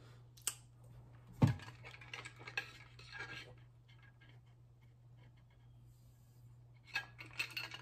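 Light clicks and clinks of a plastic tumbler and vitamin bottles being handled on a kitchen counter, with one louder knock about one and a half seconds in and another run of clinks near the end.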